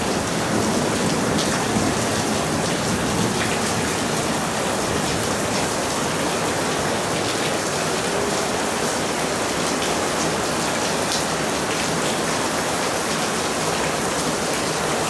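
Steady monsoon rain falling: an even hiss with scattered drop taps.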